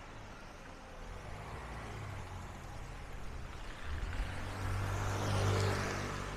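A car driving past on a wet street: low engine hum and tyre hiss swell to a peak about five seconds in, then start to fade.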